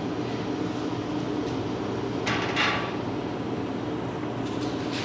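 Steady low mechanical hum of a restaurant's equipment, with a brief scraping clatter about two and a half seconds in.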